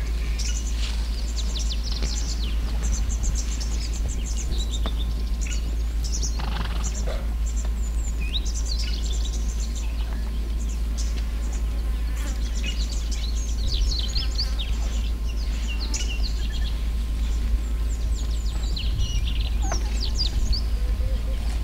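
Bush ambience of many small birds chirping and calling in quick, short notes, over a steady low rumble.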